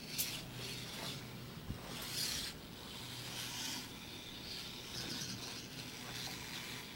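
Small hobby servos on a lightweight robot whirring in several short bursts as it is driven in steps, its plastic wheels rolling on plywood, over a steady low hum.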